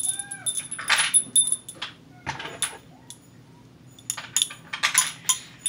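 Small metal rings and buckle hardware of a baby carrier wrap clinking and jingling, a series of sharp clicks with a light metallic ring, quieter for a couple of seconds in the middle. A brief baby vocalization just after the start.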